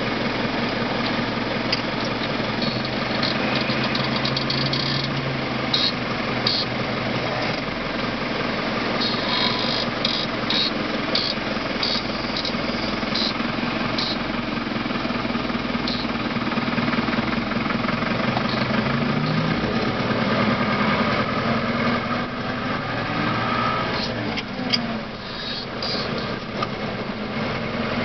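Deutz DX 4.70 Turbo tractor's air-cooled four-cylinder turbo diesel engine running steadily on the road, heard from inside the cab, with scattered light clicks and rattles over it.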